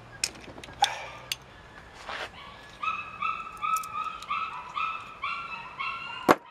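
Hand tools clicking and tapping on the Triumph Trident engine's timing side while a bolt-and-pin makeshift puller frees the auto advance from its camshaft taper. Through the second half runs a string of short, high, steady-pitched whines, about three a second, and a single sharp metallic click comes near the end.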